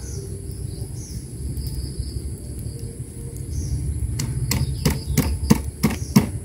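Stone pestle pounding a spice paste in a stone mortar: sharp knocks about three a second, starting about four seconds in. Insects chirr steadily in the background.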